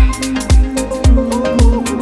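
Background electronic dance music with a steady kick drum about twice a second under a melodic synth line.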